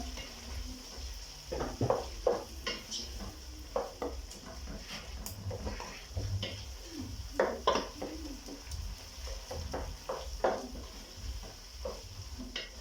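A spoon stirring in a cooking pot, clinking and scraping against its sides at irregular moments.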